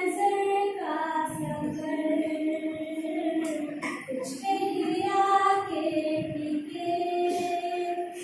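A young woman singing a song unaccompanied, holding long notes that slide from one pitch to the next, with a short break about four seconds in.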